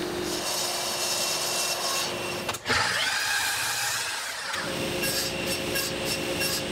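Woodworking power tools cutting and milling white oak boards, with the machine noise changing abruptly about two and a half seconds in and again about four and a half seconds in as one cut gives way to another.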